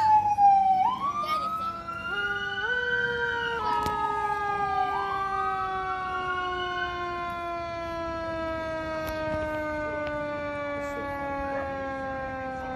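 Fire apparatus sirens wailing, several siren tones overlapping. The pitch falls, rises twice, then drops slowly over the last several seconds as a fire engine approaches with its warning lights on.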